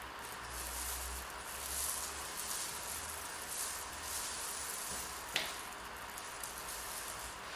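Tint brush spreading wet hair-dye paste through hair and scooping it from a mixing bowl: soft squishing, swishing strokes, with one sharp tick about five seconds in.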